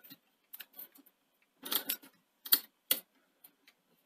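Irregular clicks and short clatters from the front-loading cassette basket mechanism of a Sony SL-C9 Betamax recorder as it is pushed and worked by hand. The loudest clatters come about two to three seconds in. The mechanism seems pretty jammed.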